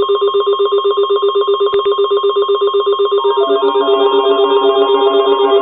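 Electronic trilling tone, ringtone-like, pulsing rapidly and evenly on a few fixed pitches; about three seconds in a second, lower set of tones joins it in a short repeating pattern.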